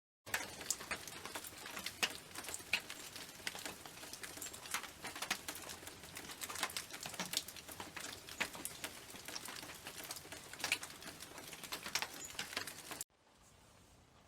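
Rain pattering: many sharp drop hits over a steady hiss. It starts suddenly and cuts off abruptly near the end, leaving only a faint hiss.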